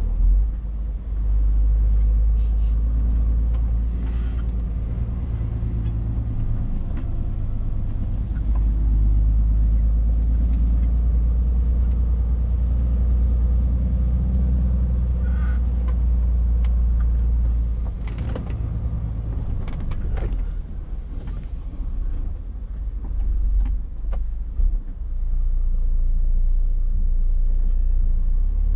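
Scania S460 truck's 13-litre inline-six diesel heard from inside the cab while driving, a steady low rumble that eases off for a few seconds past the middle and builds again near the end. A few sharp clicks sound now and then.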